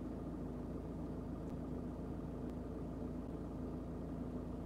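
Van engine idling: a steady, even hum heard from inside the cab.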